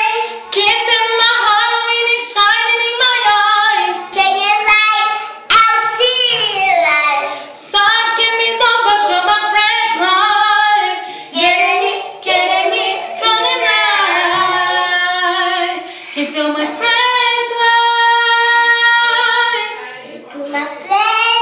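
A young girl singing with a woman singing along, with no accompaniment, in phrases broken by short pauses. They hold one long note near the end.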